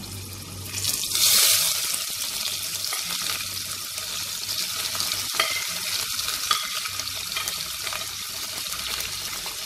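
Sliced onions dropping into hot oil in a pressure cooker: a loud burst of sizzling about a second in, settling into steady frying. A few sharp clicks come from a metal slotted spoon scraping the onions off a plate.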